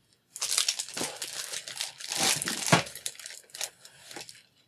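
Clear plastic packaging crinkling and rustling as it is handled, in several loud bursts that die down near the end.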